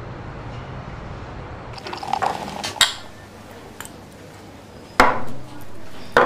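Beer being drunk from glasses at a table: liquid sounds with a few sharp glass knocks, the loudest about five seconds in.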